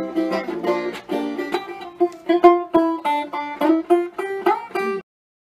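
Upbeat title theme music, a quick melody of plucked-string notes, cutting off abruptly about five seconds in.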